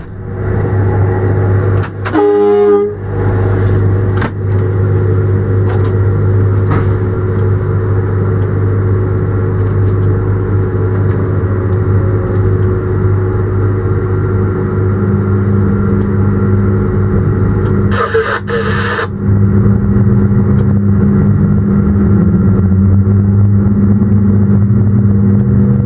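Steady low rumble and hum of a locomotive running, heard from inside its cab, with a brief horn blast about two seconds in. A short hiss comes about eighteen seconds in, and a slowly rising whine builds near the end.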